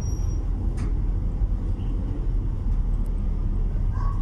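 Steady low rumble of a car driving slowly along a street, heard from inside the cabin.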